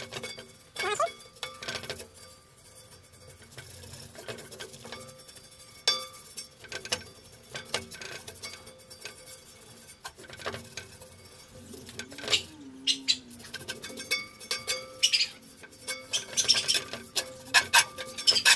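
A brush spreading oil over a ribbed cast-iron skillet, making irregular light scrapes and clicks as the bristles and handle catch on the ridges: the pan being oiled for seasoning. The strokes get busier and louder in the last few seconds.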